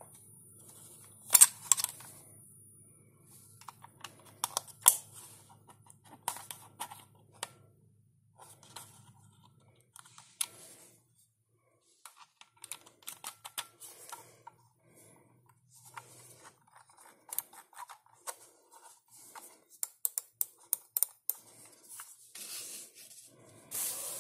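Handling noise from a plastic wireless mouse being turned over and fiddled with: irregular plastic clicks and taps with light rubbing, the sharpest clicks about one and a half and five seconds in.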